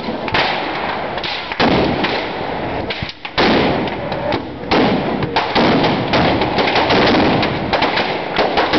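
Large effigy bonfire burning fiercely, with a dense run of sharp crackles and repeated sudden bangs of fireworks and firecrackers going off.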